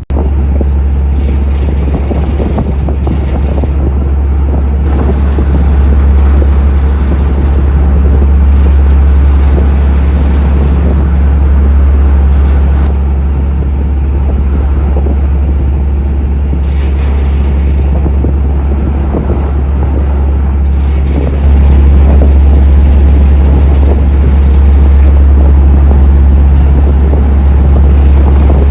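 Steady low rumble aboard a ro-ro car ferry under way, a deep drone with noise over it, stepping up slightly about 21 seconds in.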